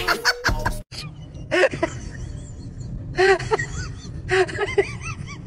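Music and laughter over a splash as a man lands in a swimming pool. After a sudden cut, a few short voice sounds come over a low steady hum.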